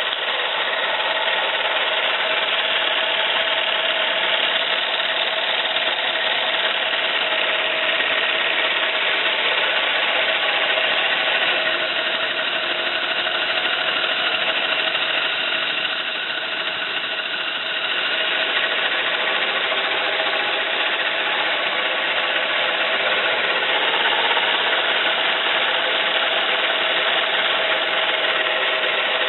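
1-inch scale live-steam Fowler ploughing engine model running, a steady mechanical noise with a few held tones, with no pause.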